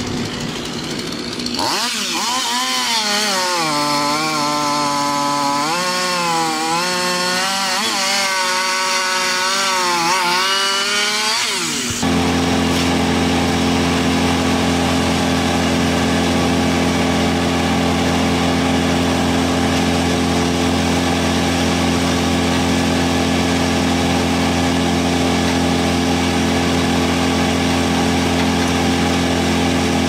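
A Stihl chainsaw running at high revs, its pitch dipping and rising as it works into a log, for about ten seconds. It is cut off abruptly by the steady, even running of a large towable wood chipper's engine.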